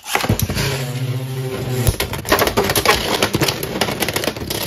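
Beyblade X spinning tops, Shark Edge and Knight Lance, launched into a plastic stadium. They whir with a steady hum for about two seconds, then clatter in quick sharp clicks as they collide and scrape around the bowl.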